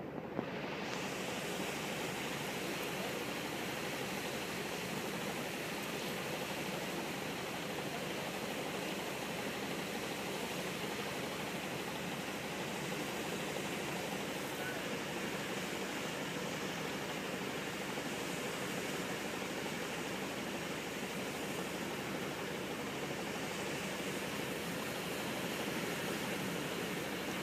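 Steady rush of rough, choppy water breaking along the shore, mixed with wind.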